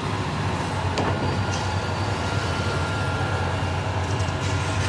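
A large vehicle running steadily: a low, even hum with a faint high whine held throughout. There is one sharp click about a second in.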